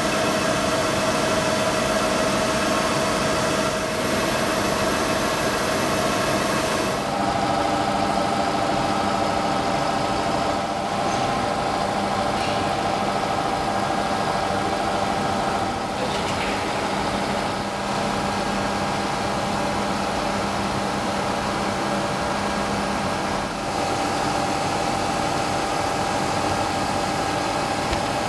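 Butler planer milling machine running: a steady mechanical hum with a whine that steps to a new pitch a few times, about seven, sixteen and twenty-four seconds in.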